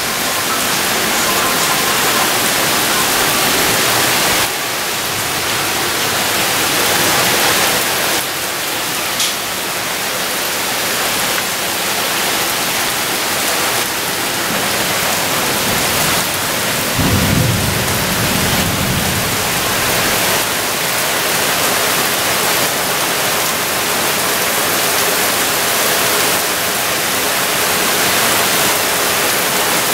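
Heavy rain pouring down in a steady hiss, with a low rumble of thunder about two-thirds of the way through that lasts a couple of seconds.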